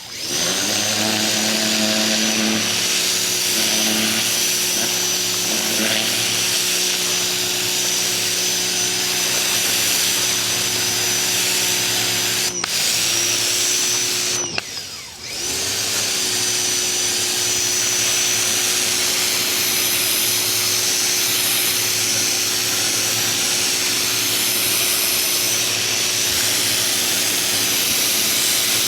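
Ryobi 2000 PSI electric pressure washer running, its motor humming steadily under the hiss of the water jet. Twice, a little under halfway through, the trigger is let off: the motor cuts out, the second time for about a second, then spins back up.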